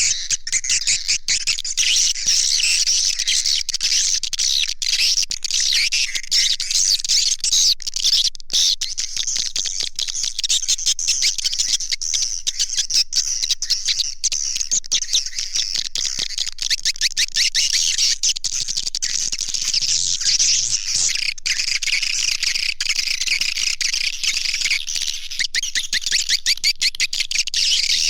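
Swiftlet calling sound: a dense, continuous chorus of high, rapid twittering chirps. It is the lure recording played to draw edible-nest swiftlets into a swiftlet house.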